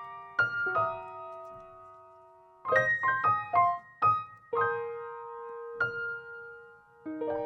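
Background piano music: a slow, gentle melody of struck notes that ring on and fade, with a held note around two seconds in before a quicker run of notes.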